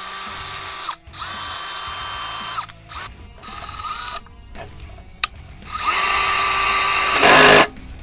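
Cordless DeWalt drill-driver running in four short bursts of steady motor whine, some starting with a quick rising spin-up, as it drives a cross-threaded screw in and out to free up the threads. The last burst, near the end, is the loudest.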